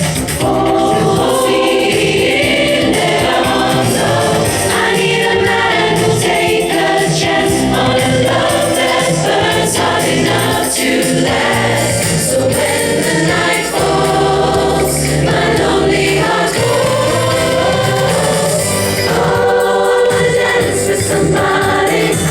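Background music: choral, gospel-style singing with accompaniment and a steady beat.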